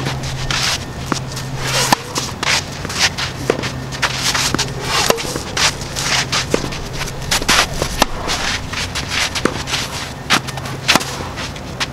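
Tennis rally: a ball struck again and again off a racket strung with Head Hawk Power polyester string and returned from across the net, with ball bounces and footsteps scuffing on the clay court between strokes.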